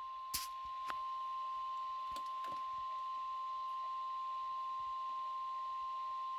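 NOAA Weather Radio 1050 Hz warning alarm tone: one steady, unbroken pitched tone, the signal that a warning message is about to follow. A few faint clicks sound over it.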